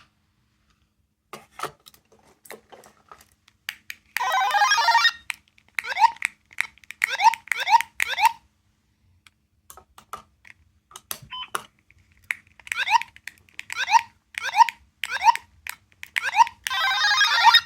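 Small electronic sound-making capsule toy playing its sound effects through a tiny speaker: a short dense burst of electronic tones, then runs of repeated electronic chirps at about two a second, and another burst near the end. Small clicks are heard in the gaps.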